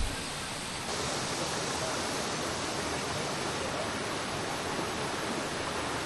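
Mountain stream water rushing steadily over rocks, with a short low thump at the very start; the rush grows louder about a second in.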